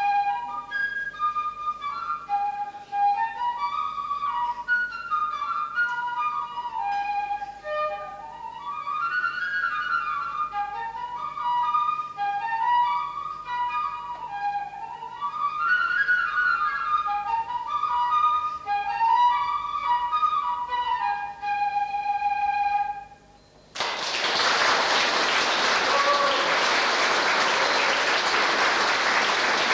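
Concert flute playing a quick Hasidic klezmer melody, runs of short notes rising and falling. Its last note is held, then after a short pause an audience applauds for the last several seconds.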